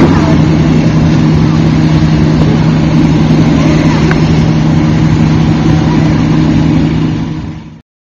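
Heavy engine idling steadily with a low, even hum. The sound fades quickly and cuts off near the end.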